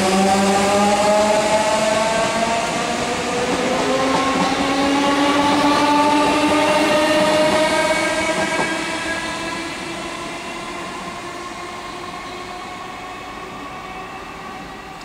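Class 315 electric multiple unit accelerating away: its traction motors whine in several tones that rise steadily in pitch over wheel-on-rail noise. The sound fades from about eight seconds in as the train draws away.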